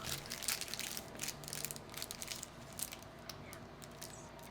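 Foil wrapper of a baseball card pack being torn open and handled: a quick, dense run of crackling clicks that thins out towards the end.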